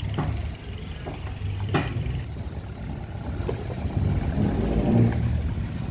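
An engine running with a steady low hum that grows a little louder after about four seconds, with a couple of sharp knocks in the first two seconds.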